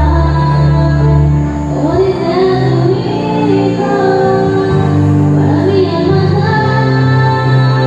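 A woman singing a slow song into a microphone over instrumental backing music with steady held bass notes.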